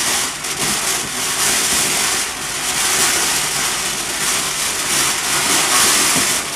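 Ground fountain firework spraying sparks with a steady, loud hiss that swells and dips unevenly as it sputters.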